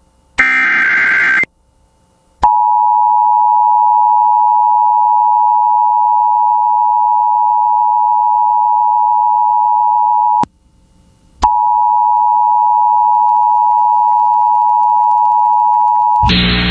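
Emergency Alert System broadcast tones. A short raspy burst of the SAME digital header data sounds first. Then the steady two-note EAS attention signal runs for about eight seconds, breaks off for about a second, and resumes for about five seconds. It gives way to a voice just before the end.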